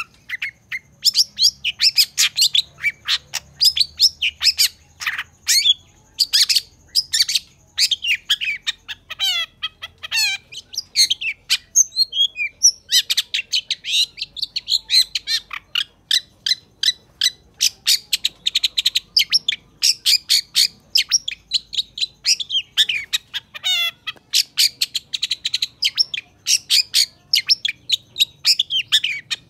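Long-tailed shrike in full, non-stop song: a fast run of short, clipped notes, several a second, mixed with quick sliding notes. There is a brief lull about halfway through.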